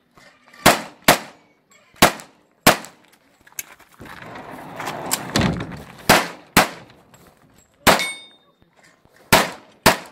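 Pistol shots fired at close range during an IPSC handgun stage: about ten sharp cracks, several in quick pairs about half a second apart, with a couple of seconds of rustling noise between them around the middle.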